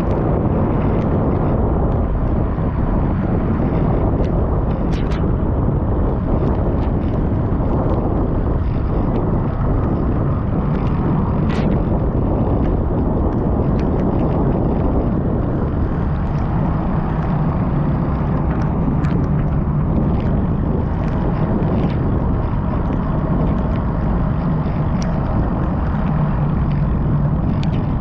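Steady low rushing of wind on the microphone mixed with road and vehicle noise while riding. A low steady hum joins about halfway through, with scattered small clicks.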